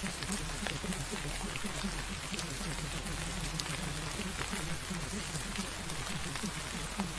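Steady rain with scattered drop ticks, over a low, muffled murmur of layered voices.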